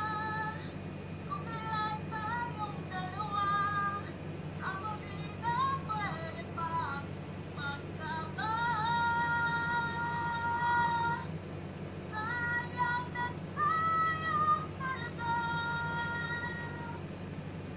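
A young woman singing a cappella, played back through a tablet's small speaker, with a long held note about nine seconds in. A steady low hum runs underneath.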